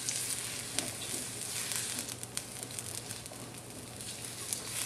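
Onion sizzling in hot olive oil in a pan, with a steady hiss and scattered pops and crackles as it begins to sweat at the start of a sauté.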